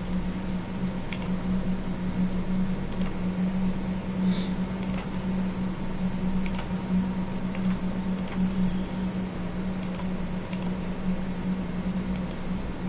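Steady low hum with scattered faint clicks of a computer mouse every second or two, one a little louder about four seconds in.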